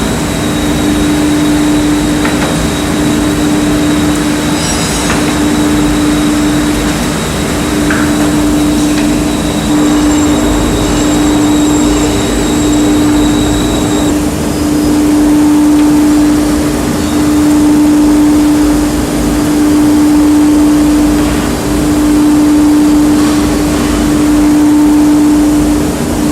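KDT KN3408D CNC nesting machining centre running, with a loud steady machine hum that swells and dips every couple of seconds. A faint high whine over it stops about halfway through.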